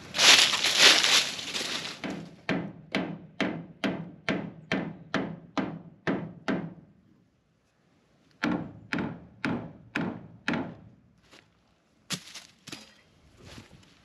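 A loud rustle and scuff, then hammer blows on a wooden door, driving it into its frame: a quick run of about three strikes a second, a pause of about two seconds, a second run of about six, then a few lighter taps. The door is going in too tight.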